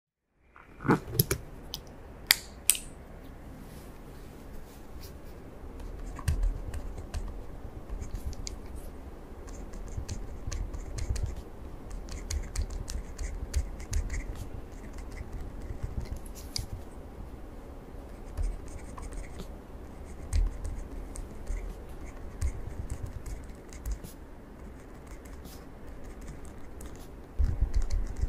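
Close-up desk handling sounds: a few sharp clicks and taps in the first seconds, then light scattered clicks, rustling and scratching, with a pencil writing on paper near the end.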